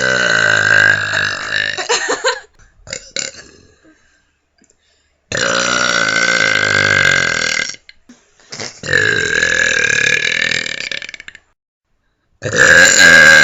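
A person belching: three long, loud, deliberate belches of two to three seconds each, with short pauses between them, and a fourth starting near the end.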